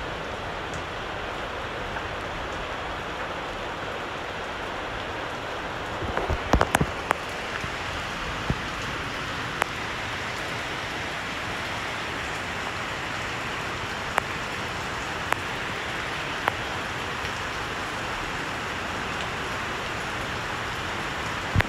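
Heavy rain falling steadily on garden plants and paving, an even hiss. A few sharp knocks close to the microphone cut through it: a quick cluster about six seconds in, then single ones every second or two.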